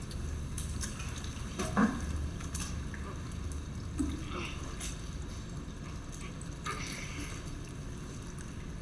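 Swimming pool water lapping and sloshing around a body floating face-down, with a couple of short splashes or knocks about two and four seconds in as a pool skimmer net on a long pole is pushed against it.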